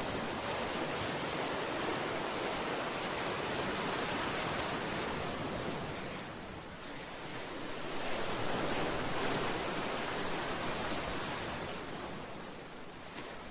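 Sea waves surging and washing against a seawall and breakwater: a steady rush of surf that dips and swells again about halfway through, then eases off near the end.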